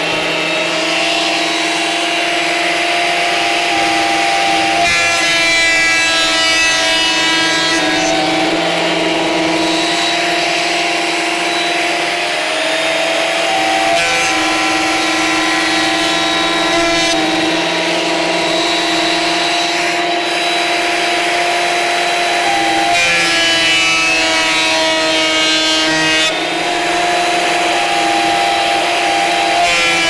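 Ozito 2000-watt planer thicknesser running with a loud, steady motor whine while boards of old beehive-box timber are fed through and planed, the pitch shifting several times as boards go into and out of the cutter.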